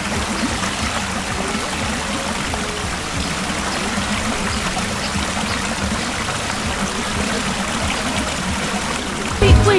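Water from a small cascade spilling over a rock ledge into a shallow stream: a steady splashing of running water.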